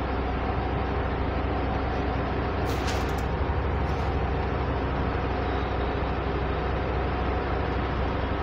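Steady, fairly loud background noise with a low hum, broken by a few short sharp clicks about three and four seconds in.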